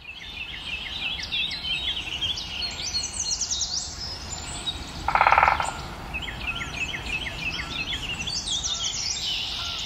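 Several birds singing and chirping in repeated short phrases over a steady low background hum. About five seconds in comes a brief, loud buzzing tone lasting under a second.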